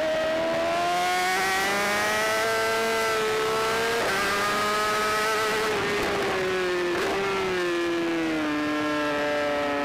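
Race superbike engine held at high revs on track, heard on board with wind rush. Its pitch climbs slowly for the first few seconds, breaks briefly a few times around the middle, then falls steadily near the end as the bike slows.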